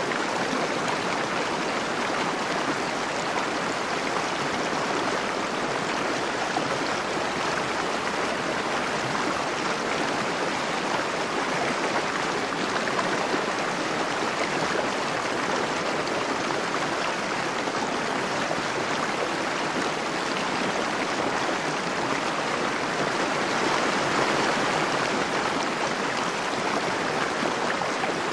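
River water flowing and rippling past the bank, a steady rush that swells slightly near the end.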